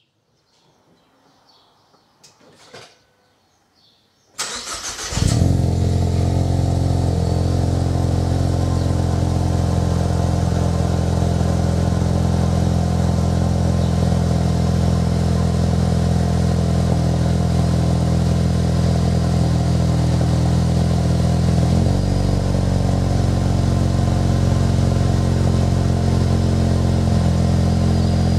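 2015 Ford Mustang EcoBoost's 2.3-litre turbocharged four-cylinder starting from cold through a Magnaflow Street series cat-back exhaust. After a few faint clicks, the starter cranks about four seconds in, the engine catches and settles into a steady fast cold idle, which drops a little about 22 seconds in.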